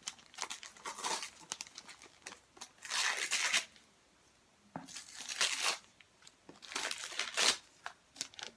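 Gift packaging being torn open and crinkled by hand, in a few longer rustling bursts with short crackles between.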